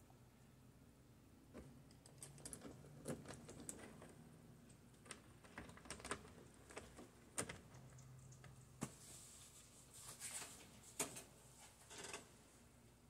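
Faint, scattered clicks and taps of a sun visor's metal bracket and screws being handled and fitted at the windshield header, with brief rustling now and then.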